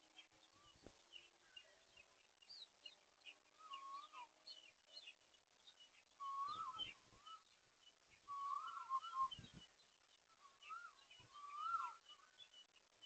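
Birds calling in a garden: faint, repeated clear whistled phrases that rise and then fall, over many short high chirps and tweets.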